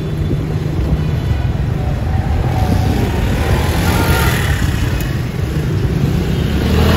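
Busy street traffic: motorcycle and car engines running and passing close by. The noise swells with one louder pass a few seconds in and another near the end.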